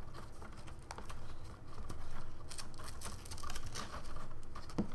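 Soft rustling and a few small clicks from handling the fabric top strap of a Samsung Gear VR headset as it is threaded into its slot, over a faint low hum.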